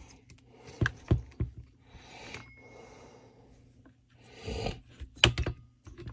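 Recoil starter of a Stihl FS 45 string trimmer pulled a few times with short whirring pulls, with clicks and knocks of handling around them, the engine not starting. It is being cranked with a spark tester fitted, to check whether the ignition coil gives a spark.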